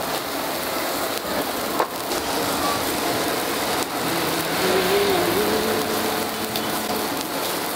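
Camel-meat kebabs sizzling and crackling over a charcoal grill, the fat dripping onto the hot coals, with a couple of sharp clicks as the metal skewers are handled.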